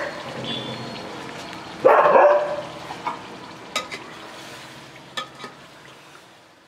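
Metal ladle stirring chicken curry in an aluminium pot, with a few sharp clinks against the pot and a steady sizzling hiss from the cooking curry. A dog barks loudly twice, once at the very start and again about two seconds in.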